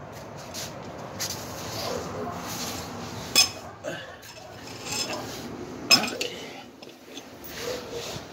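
Metal hand tools clinking as they are handled, with two sharp clinks about two and a half seconds apart over a low rustle of handling.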